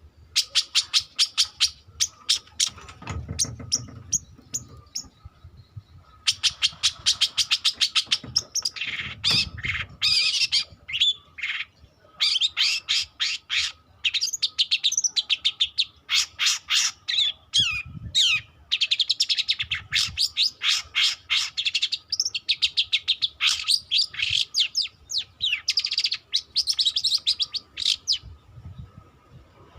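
Young long-tailed shrike singing a rambling practice song, typical of a juvenile still learning its calls. It gives fast runs of harsh, chattering and ticking notes mixed with short whistled glides, in bursts with brief pauses between them.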